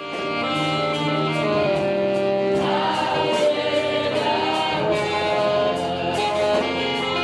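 Church congregation singing a gospel worship song together with a live band, with a steady beat.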